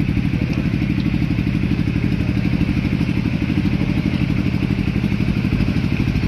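Quad-bike ATV engine idling steadily with a rapid, even putter.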